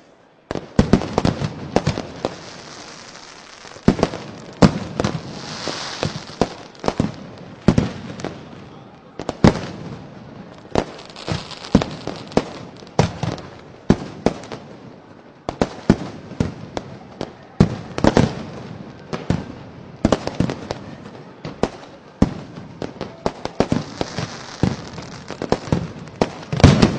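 Fireworks and firecrackers going off in a continuous barrage of sharp bangs at irregular intervals, several a second at times, after a brief lull at the start.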